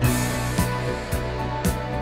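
Background music with sustained tones and a steady beat, a low drum thump about twice a second.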